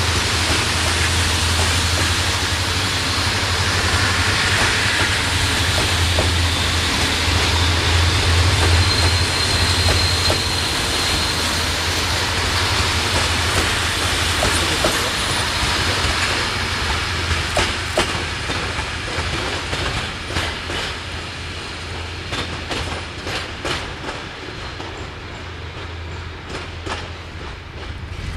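Passenger train coaches rolling past on the rails, a steady rumble of wheels that fades over the second half. Sharp wheel clicks over rail joints stand out near the end as the train draws away.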